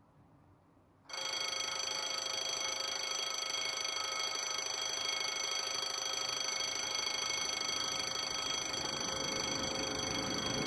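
French level-crossing warning bells switch on suddenly about a second in and ring steadily, the crossing's warning that a train is approaching.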